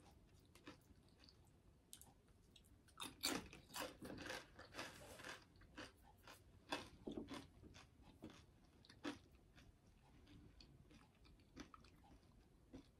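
Faint chewing of food, with a cluster of short mouth noises from about three to seven seconds in and scattered ones after.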